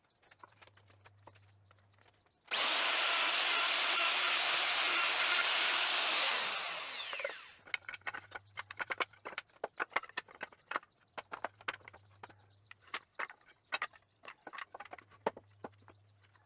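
An electric power tool runs for about four seconds and then spins down. It is followed by a run of irregular light knocks and clicks as wooden pieces are handled.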